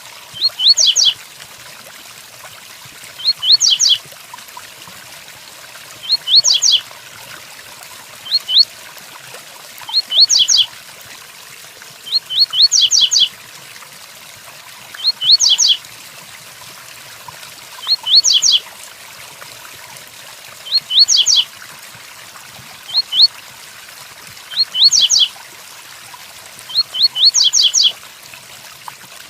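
Double-collared seedeater (coleiro) singing its 'tui tuí' song: short phrases of a few quick rising notes, repeated about every two to three seconds, over a steady background of rain.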